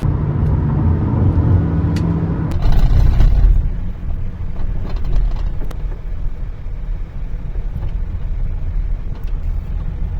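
Toyota Camry on the move, with a steady low rumble of road and engine noise. A louder rough stretch comes a few seconds in, and a few faint sharp knocks sound now and then.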